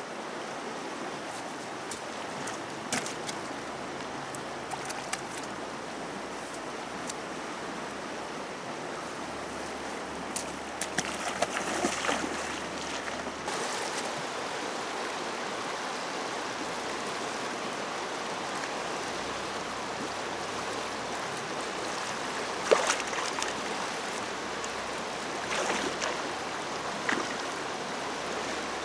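Fast-flowing, swollen muddy river rushing steadily, with several sharp splashes as a long wooden pole is plunged into the water, the loudest about two-thirds of the way through.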